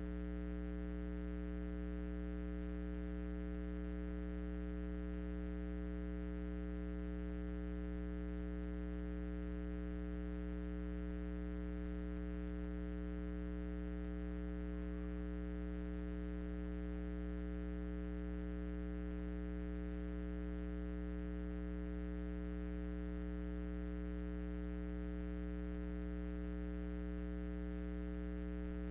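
Steady electrical mains hum: a constant low buzz with many overtones, unchanging throughout.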